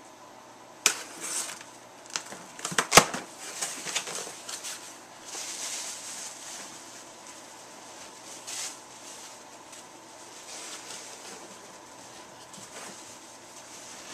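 Cardboard mailing box being opened by hand: several sharp snaps and clicks of tape and flaps, the loudest about three seconds in, then softer rustling and scraping of cardboard and packing.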